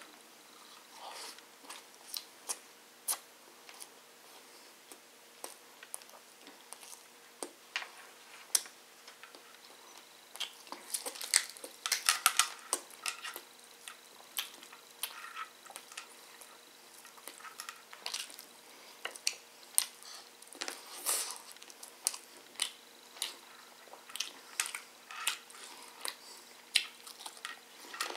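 Close-up eating sounds: a man chewing chicken and biryani rice eaten by hand, with many short wet mouth clicks as he bites and pulls meat off a chicken-leg bone. The clicks come thickest about a third of the way through.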